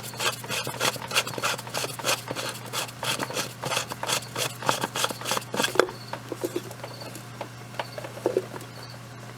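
Ratchet wrench clicking at about four or five clicks a second, loosening the cap of the fuel filter housing. The clicking stops about six seconds in, leaving a few scattered light clicks and taps.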